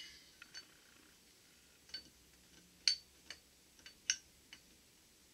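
Borg-Warner T-10 first-second synchronizer assembly clicking metal on metal as it is worked down onto the splined transmission mainshaft by hand: about nine light, irregular clicks with a slight ring, the sharpest about three and four seconds in.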